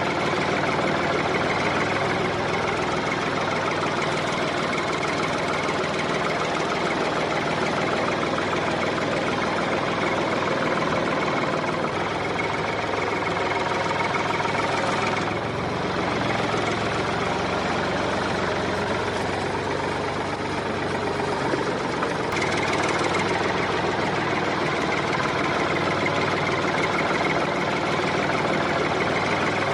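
The small motor of a miniature DIY tractor, running steadily.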